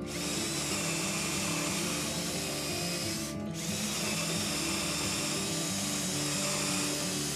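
Cordless drill boring dowel holes into plywood through a dowel jig's metal guide bushing, stopping briefly about three and a half seconds in before drilling again. Background music plays underneath.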